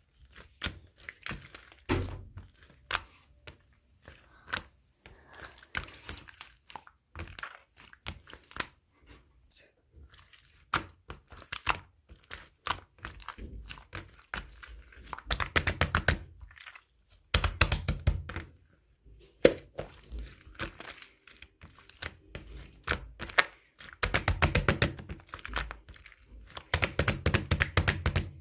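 Clear slime being squished and pressed by hand, making dense runs of small clicks, crackles and pops, with several louder flurries in the second half.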